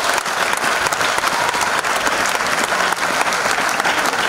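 Large audience applauding steadily in a hall, many hands clapping at once.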